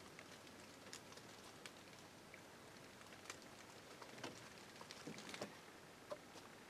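Near silence with faint, irregular pattering ticks, a few slightly louder ones bunched together about two-thirds of the way through.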